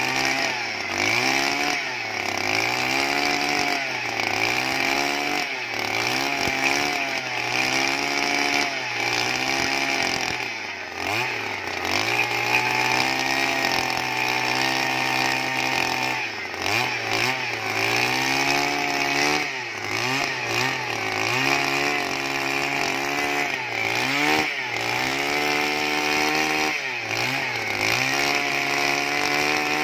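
Two-stroke petrol earth auger running hard as its spiral bit drills into the soil, the engine pitch repeatedly dropping and rising again every second or two.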